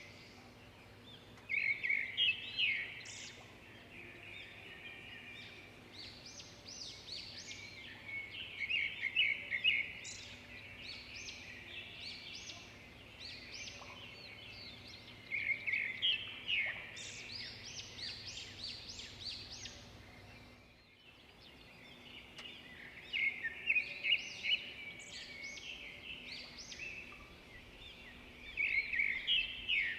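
Several songbirds chirping and singing, with louder bursts of rapid chattering calls every several seconds.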